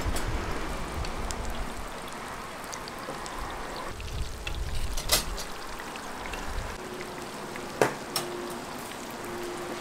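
Eggs frying in a large wok of hot oil, a steady sizzle, with a few sharp clinks of a metal spatula against the wok and tray, the loudest about eight seconds in.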